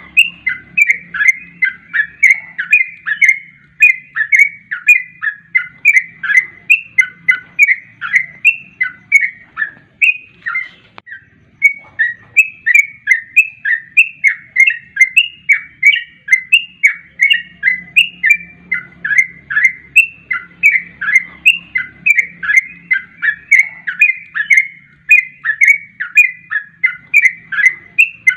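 Yellow-vented bulbul (trucukan) calling in a rapid, unbroken series of short chirping notes, about three a second, with a brief pause about ten seconds in. This is a lure call ('pancingan') meant to set caged trucukan singing.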